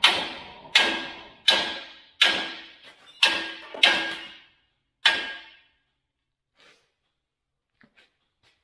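Hammer blows on steel, driving a new boss into a bale handler's tine collet: seven ringing metal strikes, roughly three-quarters of a second apart, that stop about five seconds in, followed by a few faint clicks.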